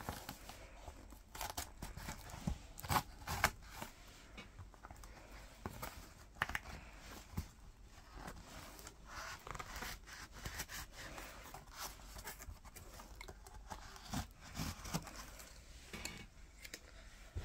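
Scissors cutting along the edge of a cardboard mailer, with scattered short snips and scrapes as the cardboard is cut and handled.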